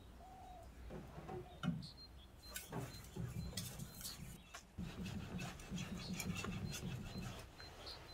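Yaxell Damascus cleaver being stroked back and forth by hand on a #10000 finishing whetstone: a soft, repeated rubbing that becomes busier and louder from about two and a half seconds in until near the end. Short bird calls from a nature-ambience track sound in the first second or so.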